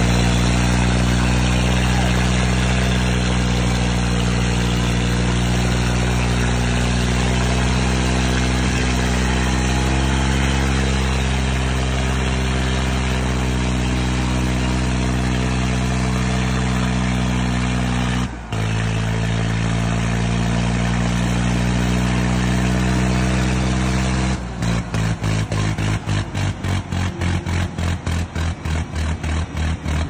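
Diesel engines of two farm tractors, a Swaraj 855 FE and a John Deere, running at full throttle under heavy load as they pull against each other on a chain in a tug-of-war, a steady labouring drone. About 24 seconds in, the sound turns into a rapid stutter, cutting in and out about four times a second.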